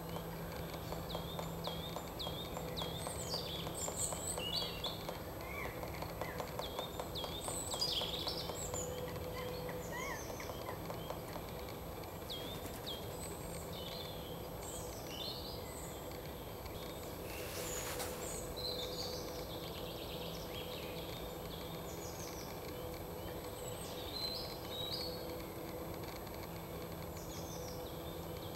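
Small birds chirping and calling over and over in high, short notes, busiest in the first half, over a steady low background hum. A brief rush of noise passes just past the middle.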